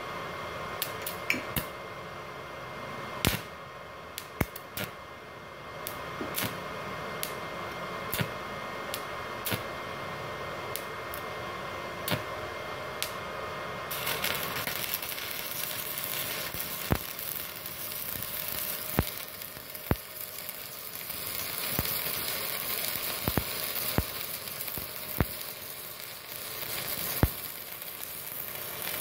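Stick-welding arc from a 2 mm electrode on a small Multipro inverter welder. It starts with sparse sharp clicks and crackles over a faint steady hum. About fourteen seconds in it settles into a steady frying sizzle with frequent sharp pops, the rod burning smoothly.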